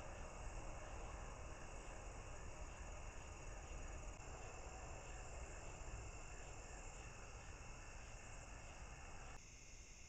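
Night insects, crickets, calling steadily: a continuous high trill with regular pulsing chirps over a faint hiss. The sound changes abruptly near the end.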